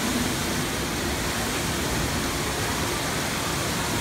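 Steady rush of water cascading over rocks into a pool.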